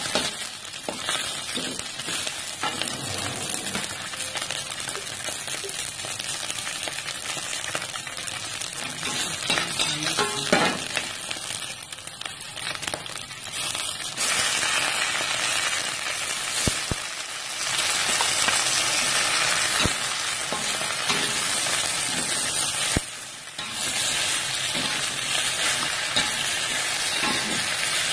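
Stir-frying in a wok: hot oil sizzling steadily while a metal spatula scrapes and tosses spring onions and egg. About halfway through, water spinach is dropped in and the sizzle grows louder.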